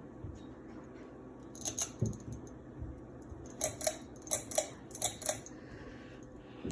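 Ceiling fan switch clicking: a click, then several quick pairs of sharp clicks as the fan is switched off.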